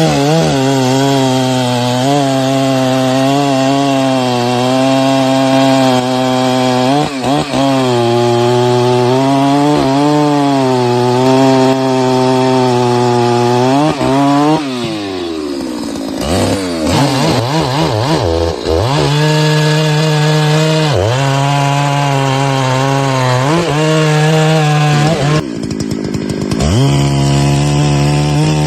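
Two-stroke chainsaw running hard while cutting wood, its engine note sagging under load and picking up again every couple of seconds. About halfway through the revs fall away, then the saw is revved up and down before settling back into steady cutting.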